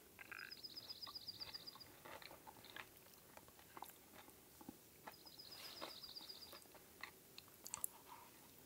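Faint chewing and a spoon scraping and clicking in a plastic food bag. A small songbird's rapid, even trill sounds twice, near the start and again about five seconds in.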